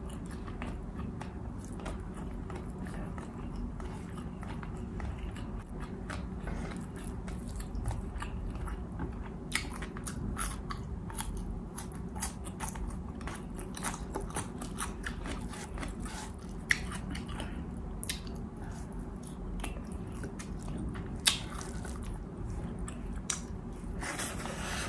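A person chewing and eating beef steak close to the microphone, with many small wet mouth clicks and a few sharper clicks, over a steady low hum.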